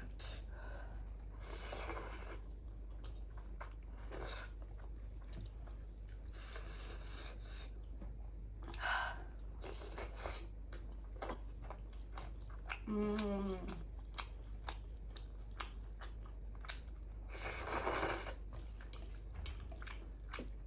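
Close-miked eating: chewing, biting and crunching food, with scattered mouth clicks and several short bursts of noise. Near the middle, a brief hummed vocal sound with a slight fall in pitch.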